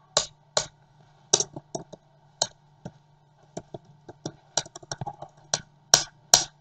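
Typing on a computer keyboard: irregular keystrokes in small runs, with two sharper clacks near the end, over a faint steady hum.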